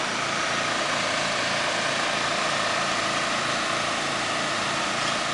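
Steady engine drone with a constant whine and a low pulsing that does not change.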